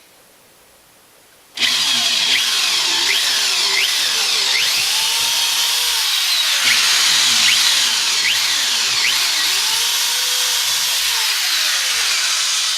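Electric drill boring pilot holes into a wooden bench top. It starts about a second and a half in and runs continuously at high speed, its pitch sweeping up and down several times.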